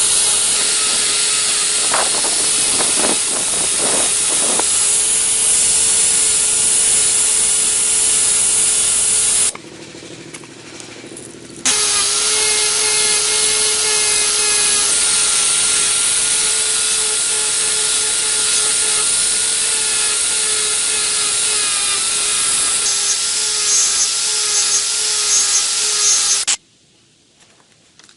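Electric power tool running under load on the hammer restoration, a loud hissing whir with a steady whine. It cuts out twice: for about two seconds near the middle, and again near the end.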